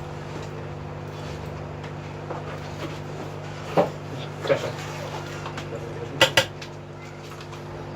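A few sharp light taps and clicks of small metal repair tools against a board or bench, the last two close together. Under them runs a steady electrical hum.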